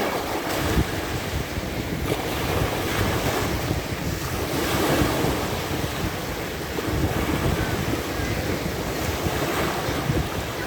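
Sea waves breaking and washing up on a sandy beach, swelling and easing every few seconds, with wind buffeting the microphone.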